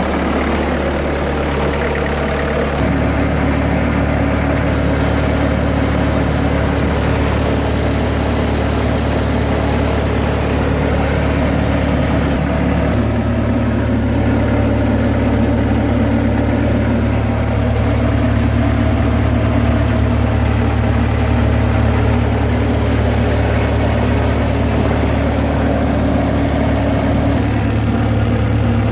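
Bobcat 763 skid steer loader's diesel engine running steadily. Its note shifts a few seconds in and again about halfway through.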